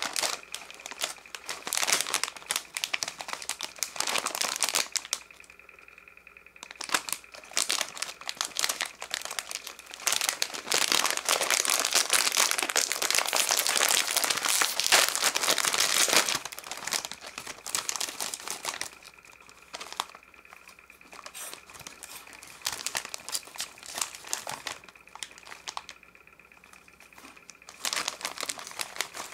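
Thin plastic snack wrappers crinkling as they are handled close to the microphone, in bouts, with a long continuous stretch in the middle and quieter pauses between. A faint steady high whine is left in the pauses.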